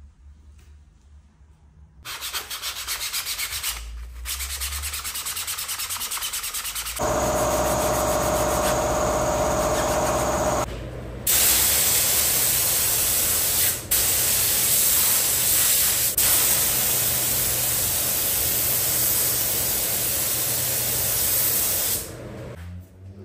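A gravity-feed air spray gun hissing as it sprays a grey coat onto a 3D-printed part; the hiss is the loudest and longest sound, dipping twice for a moment when the trigger is let off, and stops shortly before the end. Before it come a grainy rubbing, sanding-like noise and then a few seconds of a steady machine hum.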